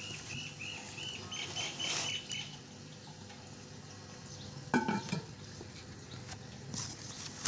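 A bird gives a quick run of about ten short, high chirps over the first couple of seconds. About five seconds in comes a single sharp clink as the lid is set onto a painted clay cooking pot, with light handling rustle around it.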